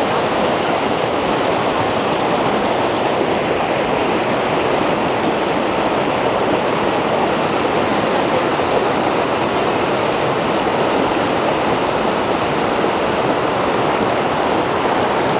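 Fast mountain stream rushing and splashing over boulders and stones: a steady, loud rush of water.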